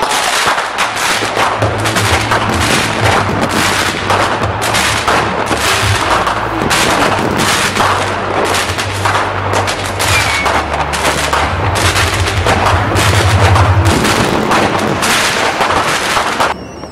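Aerial fireworks going off in a rapid, continuous barrage of bangs and crackles, shell bursts overlapping one another. A low steady hum runs underneath for most of it and stops a few seconds before the end.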